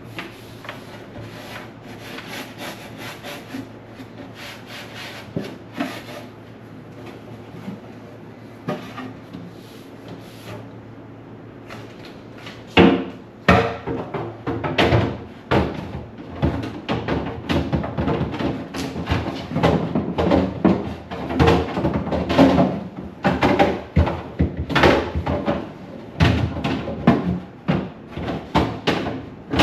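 Handling and scrubbing during fridge cleaning: light clicks and rubbing at first, then from about halfway a busy run of irregular knocks, clatters and scraping rubs.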